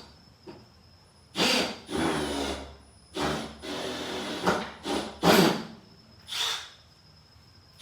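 A series of about five short rubbing and scraping bursts from tool bits being handled in and out of a plastic bit case, the loudest a little past the middle.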